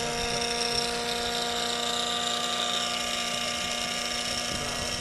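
Small electric suction fan set on the chimney of a model steam boat's charcoal-fired boiler, running with a steady whine. It pulls a draught through the firebox to get the charcoal burning and raise steam.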